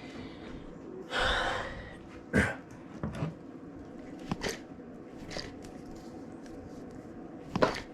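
Sharp clicks and knocks from a food container being closed and handled as its lid is sealed, with a short hissing rustle about a second in.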